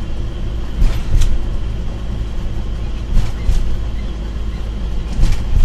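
Steady low road and engine rumble of a moving vehicle, heard from inside it, with a few brief knocks about a second, three seconds and five seconds in.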